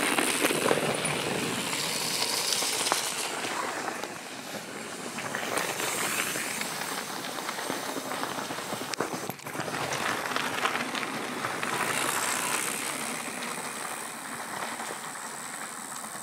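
Mountain bike tyres crunching and crackling over a loose gravel and stone trail, with the bike rattling, a continuous noisy rumble full of small clicks that dips briefly about four seconds in and again near the middle.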